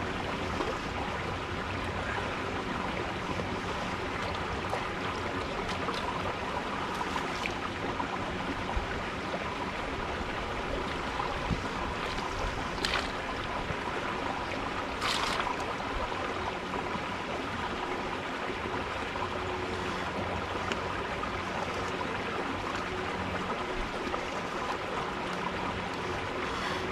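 A creek flowing steadily, an even rushing water noise. Twice a short, sharp sound stands out above it a little past the middle.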